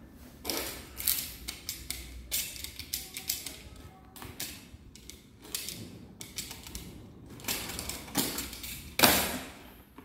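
Irregular clicks, taps and knocks of a drill bit set and its case being handled, with a louder knock about nine seconds in.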